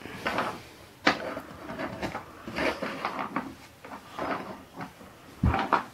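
Wooden toy building blocks clacking against each other and being set down on a wooden floor: irregular knocks, a sharp one about a second in and a heavier thud near the end.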